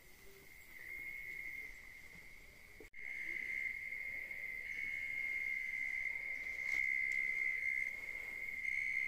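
Jungle insects droning in one steady high-pitched tone. The sound drops out briefly about three seconds in and is louder after that.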